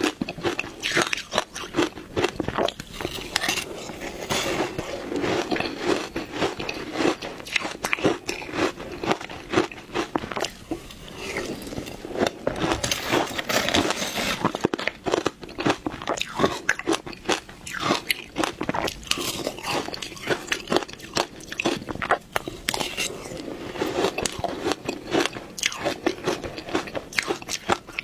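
Close-miked crunching and biting of frozen matcha ice in the mouth: dense, irregular crunches throughout.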